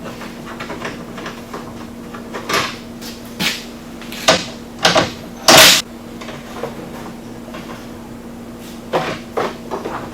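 Short plastic clacks and rattles of a UTV's front body panel and its screws being worked loose and handled, about five in the middle, the loudest near six seconds, and a few more near the end, over a steady low hum.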